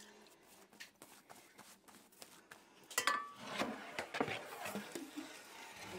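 Faint clicks, then about halfway through a sharp clink with a brief ring, followed by a run of knocks from things being handled.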